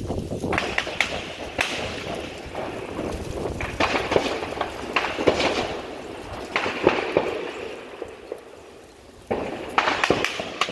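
Scattered gunshots: about a dozen single sharp cracks, a fraction of a second to a few seconds apart, each trailing off in an echo, with a short lull before a few more near the end.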